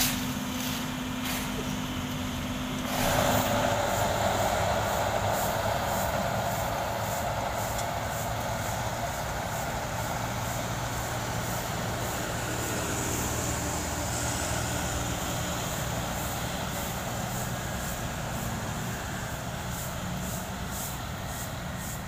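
For about the first three seconds, a Sumitomo asphalt paver's engine runs steadily with scattered clicks. Then the sound changes abruptly to a tandem road roller's diesel engine running as the roller drives over freshly laid asphalt, a steady rumble with hiss.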